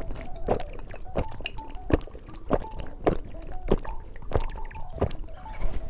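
Close-miked chewing of candy, with a sharp wet chewing sound about every 0.6 seconds in a steady rhythm.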